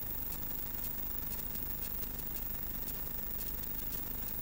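Steady rushing noise of wind and rough sea on the microphone, with frequent sharp crackles.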